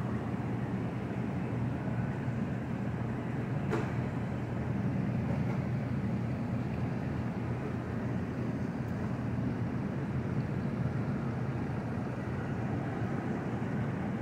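Steady low machine hum with a rushing background noise, and one brief click about four seconds in.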